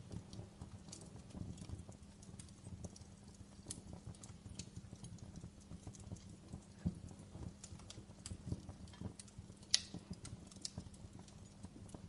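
Wood campfire crackling: irregular snaps and pops of burning wood over a low rumble of the flames, with a sharper, louder pop about ten seconds in. A faint steady hum runs underneath.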